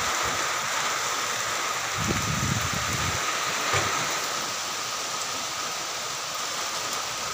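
Steady hiss of light rain falling on garden plants and leaves, with a faint steady tone underneath and a brief low rumble about two seconds in.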